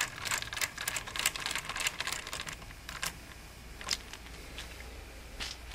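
Small screwdriver driving a screw into a laptop's metal hard-drive bracket: quick light metallic clicks and scrapes for about three seconds, then a few scattered clicks.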